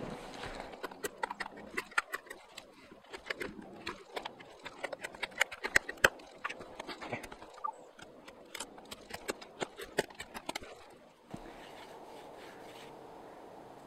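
Knife blade shaving and scraping a wooden stick: a quick, irregular run of sharp scrapes and clicks that stops about eleven seconds in.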